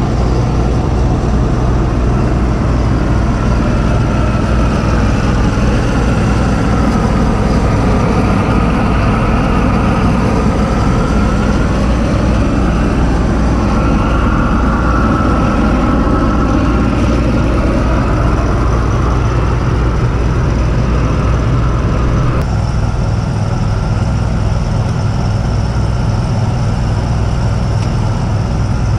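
Engine-driven welder on a service truck running steadily at idle, with the rushing flame of a torch preheating the cold steel of a cracked excavator stick before welding.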